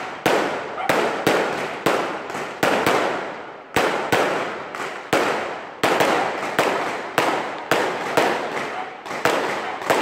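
Aerial fireworks bursting in quick succession, about two loud bangs a second, each trailing off in an echo.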